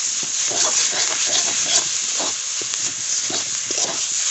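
Metal spatula scraping and stirring mashed potato filling in a steel kadai, with repeated scraping strokes over a steady sizzle of the oily filling cooking.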